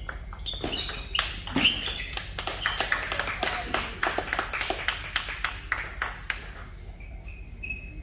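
Table tennis ball clicking off paddles and the table in quick succession during a rally, then bouncing. The clicks stop about six seconds in.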